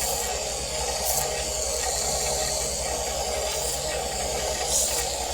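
Small electric motor of a mini desktop saw-and-sander running steadily, with the hiss of a piece of wood being sanded and a few brief scratchy peaks as it is pressed on.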